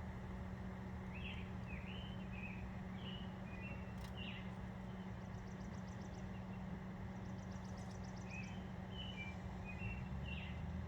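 Small birds chirping in short, scattered calls, with two quick high trills, over a steady low hum; a single click about four seconds in.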